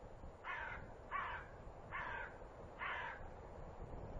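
A bird calling four times, harsh calls a little under a second apart.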